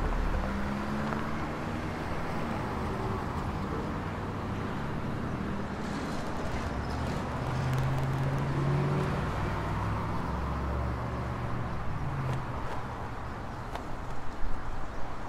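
Street traffic: car engines running and vehicles passing, with a few short, louder sounds near the end.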